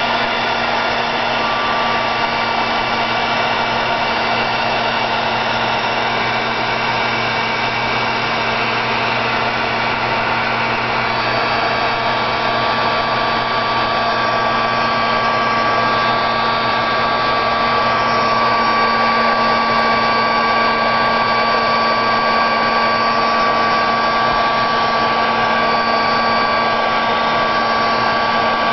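Handheld craft dryer blowing steadily over a wet painted page, a steady motor whine running through the rush of air.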